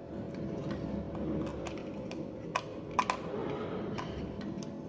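Light clicks and small taps of a screwdriver and wire against the plastic terminal of a panel indicator lamp as a wire is fastened into it, with a few sharper clicks about two and a half to three seconds in.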